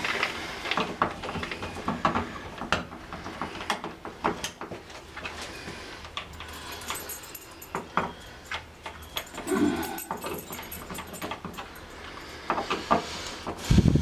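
Scattered small clicks and taps of hands and tools working the wires and screws of a wall light switch, with a brief low whine about ten seconds in.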